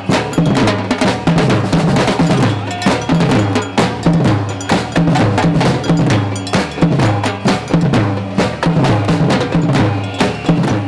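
Street drumming band playing a loud, fast, continuous rhythm on bass and snare drums, with sharp stick hits and a metallic clanking over a repeating low drum pattern.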